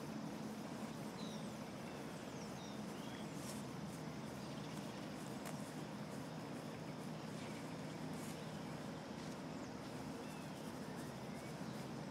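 Steady outdoor background hum with faint, scattered bird chirps.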